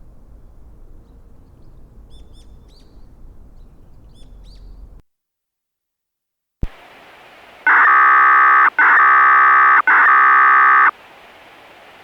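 Light outdoor ambience with a few bird chirps, then a sudden cut to silence, a click, and a steady hiss. Over the hiss come three loud, steady electronic tones of about a second each, one right after another.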